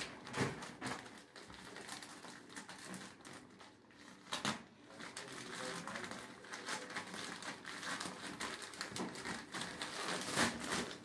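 Plastic poly mailer bag rustling and crinkling as it is handled and opened and a plastic-wrapped package is pulled out of it. There is a sharper click about four and a half seconds in.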